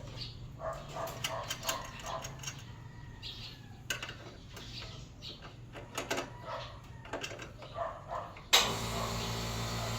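Irregular metallic clicks and clinks of a wrench working the chain-adjuster lock nuts on a motorcycle's rear axle as they are tightened. Near the end a steady hum with hiss comes in suddenly.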